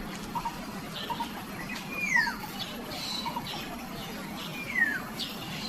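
Birds calling over a steady background hiss: two down-slurred whistles, about two and five seconds in, among short repeated chirps and ticks.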